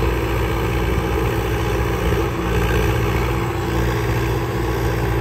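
Tractor diesel engine running steadily under load as it hauls the trenching machine out of the field.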